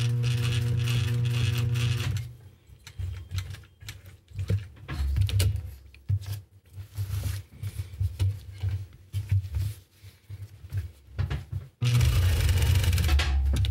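Juki DDL-555 industrial straight-stitch sewing machine running in two short bursts of about two seconds each, at the start and near the end, stitching backpack strap webbing. In between come scattered short handling sounds as the strap is shifted and turned under the presser foot.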